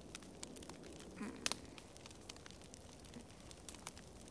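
Log fire crackling in a fireplace: faint, scattered small pops and snaps.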